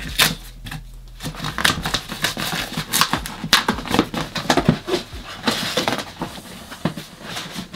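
Corrugated cardboard shipping box being torn open by hand: an irregular run of ripping, crackling tears and scrapes as the flaps are pulled apart.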